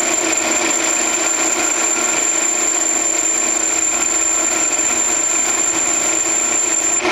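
Grizzly G0602 10x22 metal lathe running steadily while turning an aluminium workpiece, cutting an angle off its corner: a constant machine hum with a thin high whine that stops just before the end.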